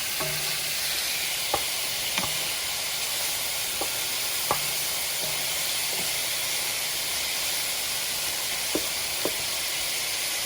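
Thick-cut bacon sizzling as it fries, a steady hiss broken by a scattering of short, sharp pops of spattering fat.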